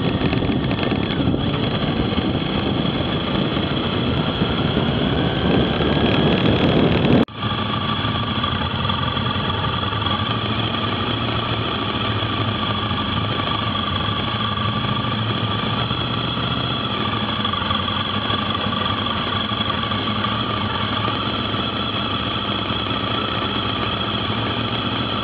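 Motorcycle engine running with rushing wind noise while riding. About seven seconds in the sound cuts abruptly to a steadier engine note with a constant high whine.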